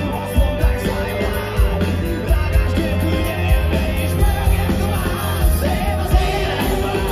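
Live rock band with a male lead singer, drums and keyboards playing at full volume with a steady beat, heard from among the festival crowd.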